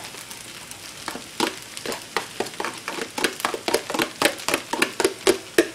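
Fried rice frying in a cast-iron skillet with a low hiss, over irregular sharp scrapes and taps of a utensil, several a second, as scrambled egg is added and stirred in.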